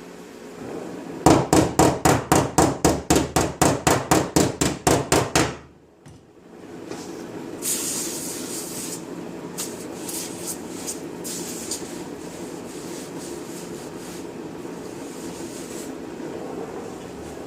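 Hand hammer striking the thin sheet metal of a van's quarter panel, a fast even run of about sixteen blows, about four a second. After a short pause comes a steadier mechanical noise with short high hissing bursts.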